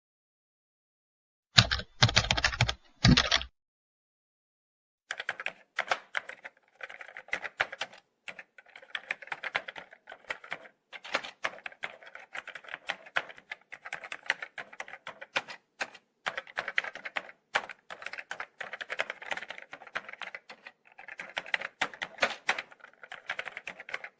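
Typing on a computer keyboard. A short, fast flurry of key clatter comes about two seconds in, then after a pause a long run of irregular keystrokes broken by brief breaks.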